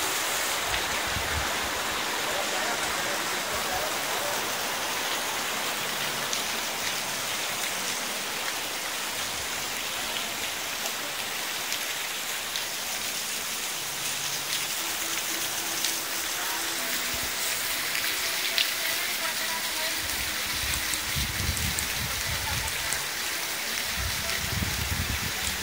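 Heavy rain falling steadily on pavement and open water, a dense even hiss, with some low rumbling near the end.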